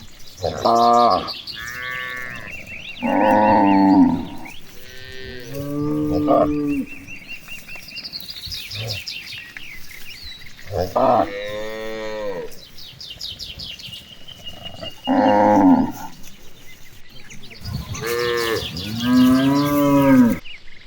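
Cows mooing over and over, about eight calls of half a second to two seconds each, some bending in pitch. Fainter high chirping runs underneath.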